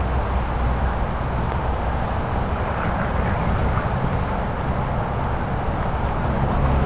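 Truck driving: a steady engine hum with road noise.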